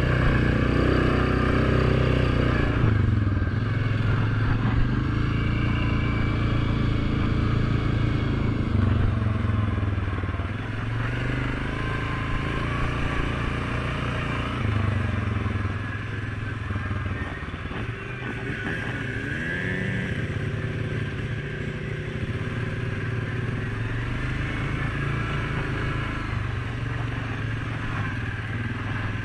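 ATV engine running as the quad rides along a dirt trail, its revs rising and falling with the throttle.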